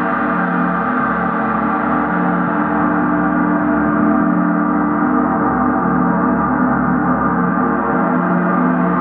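Large suspended gongs played continuously in a gong bath: a dense, steady wash of many overlapping ringing tones, with no single strike standing out.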